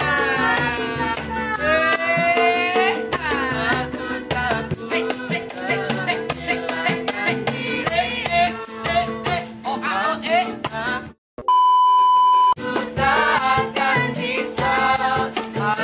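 A girl singing a pop ballad to strummed ukuleles, with a shaker rattling the beat and others singing along. About eleven seconds in the music cuts out and a steady electronic beep sounds for just over a second before the song picks up again.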